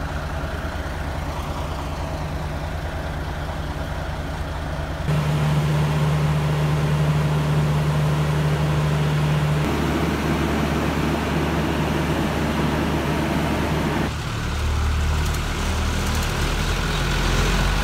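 A motor vehicle's engine running steadily, a low hum under a noisy wash. The sound changes abruptly about five seconds in, getting louder, and again about fourteen seconds in.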